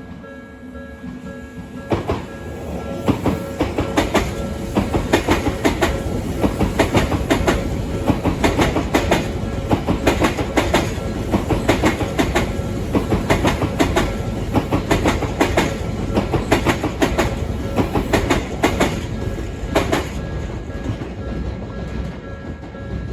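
A train passing over a level crossing, its wheels clattering over the rail joints in a fast run of clacks from about two seconds in until near the end, over a steady rumble. A level crossing warning bell keeps ringing as a steady tone throughout.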